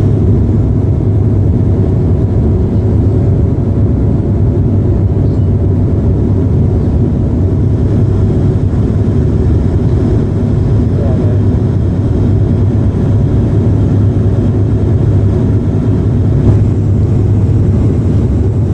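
Steady low drone of a moving vehicle heard from inside, dominated by a constant low hum.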